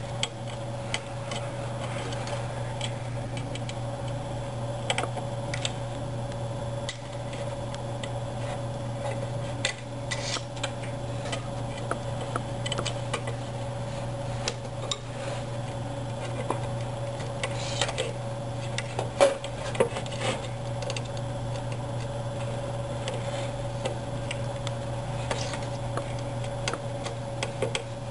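A 2.5 mm hex key clicking against the metal Z-stage bearing screws as they are loosened one by one: scattered small metal ticks, the sharpest a pair of clicks about two-thirds of the way through, over a steady low hum.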